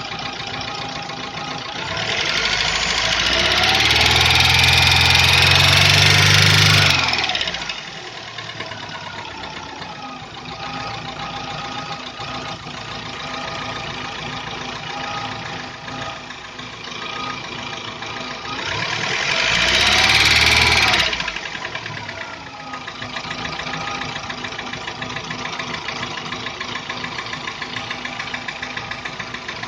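Warm Daewoo Lanos 1.5 engine idling with a rapid, rhythmic tapping knock. It is revved up twice, once for several seconds near the start and again briefly about two-thirds through, each time falling back to idle. The owner suspects the knock is from the hydraulic lifters.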